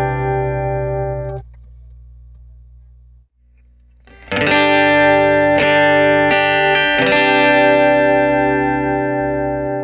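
Guitar played through a Cube Baby AC multi-effects pedal. A ringing chord is cut off about a second and a half in; after a short pause a chord is struck, followed by a few more strokes, and left to ring out.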